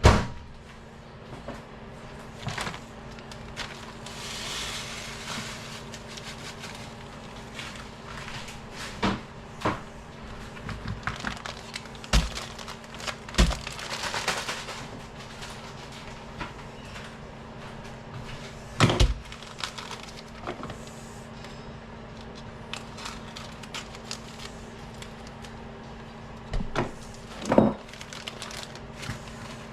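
Kitchen work sounds: scattered knocks and clunks of utensils, pans and cupboards, the loudest right at the start and two more about two-thirds of the way through and near the end, with two brief stretches of rubbing or scraping, over a steady low hum.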